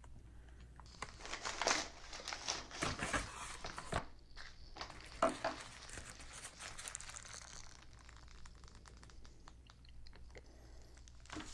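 Foil-lined paper sandwich bag and paper wrapper crinkling and rustling as a chicken sandwich is pulled out and unwrapped by hand. The rustles come in irregular bursts from about a second in, loudest in the first few seconds, and die down after about eight seconds.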